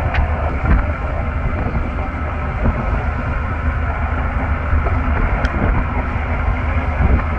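Fishing trawler's engine running steadily, a constant low hum with noise over it.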